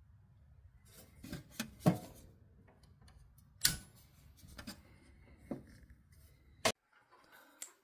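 Scattered sharp clicks and knocks with light scraping as a ceiling fan's light fixture is handled and its screws are worked loose; the loudest clicks come about two seconds in, near the middle and near the end.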